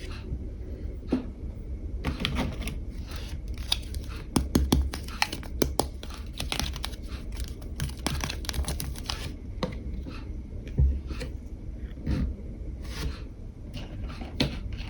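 Small plastic items and packaging handled close to the microphone: irregular clicks, taps and crinkling, busiest in the middle stretch.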